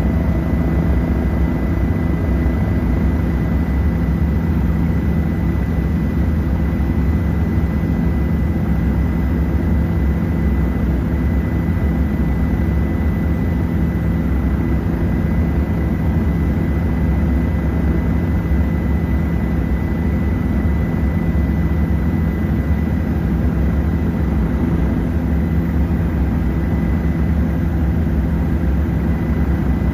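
Tour helicopter's engine and rotors running steadily in flight, heard from inside the cabin: a loud, even low hum with a thin steady high whine over it.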